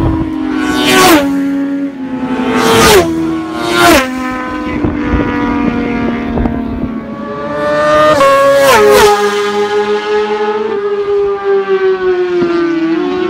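Racing motorcycles passing at full speed one after another, about five in all: each is a sharp rush of engine sound whose pitch drops as it goes by, with two coming close together about nine seconds in. Their engine note then carries on more steadily and trails away.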